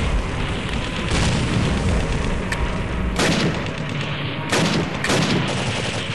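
Paintball markers firing in a big outdoor game, with a steady rumble of wind on the helmet camera's microphone. Sudden sharper bursts come about three, four and a half and five seconds in.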